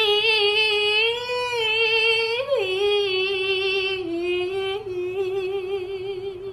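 A high voice holding one long sung 'aah' note with a slight wobble, rising briefly about two and a half seconds in and dipping a little near four seconds, then fading just before the end.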